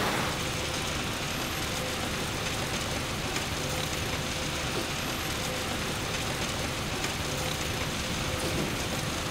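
Steady noise of construction-and-demolition waste recycling plant machinery: conveyors running and crushed aggregate pouring onto a stockpile in a continuous hiss, with a faint steady hum.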